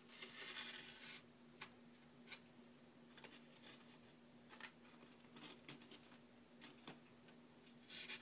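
Faint hand-stitching sounds: a short swish of thread being pulled through the paper pages and tape near the start, then scattered light ticks and rustles of needle and paper, over a faint steady hum.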